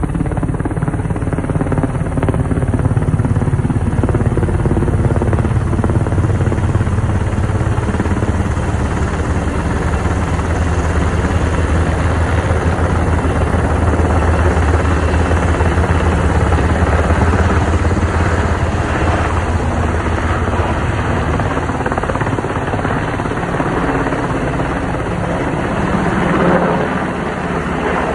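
Firefighting helicopter flying low overhead with a water bucket slung on a long line: a steady, loud rotor beat and engine drone throughout.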